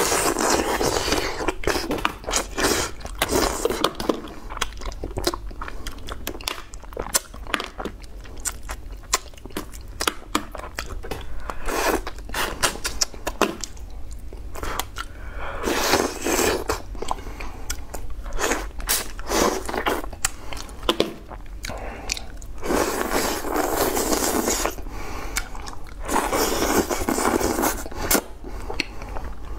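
Close-miked eating: wet chewing and lip smacking with many sharp clicks of mouth and chopsticks, broken by several longer slurping stretches as soft steamed fish and rice are sucked in off the chopsticks.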